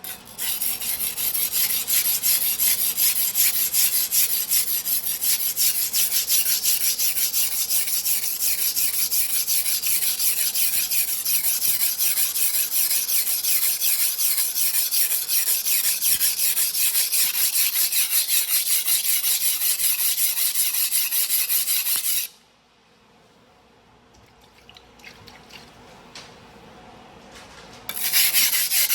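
Steel knife blade, a 270 mm single-bevel sujihiki, stroked back and forth on a whetstone by hand in quick, even, scraping strokes. The stroking stops about 22 seconds in, leaving a few faint sounds, and starts again near the end.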